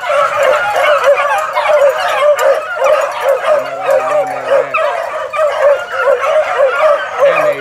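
Four-month-old hound puppies baying and yipping on a rabbit chase: several voices in a fast, overlapping chorus of short cries that never lets up.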